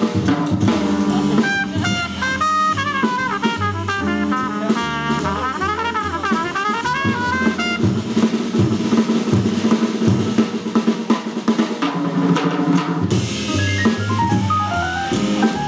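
Live jazz quintet playing: drum kit, upright bass and piano under trumpet and tenor saxophone. The horns play the melody through the first half, then drop out, leaving piano, bass and drums near the end.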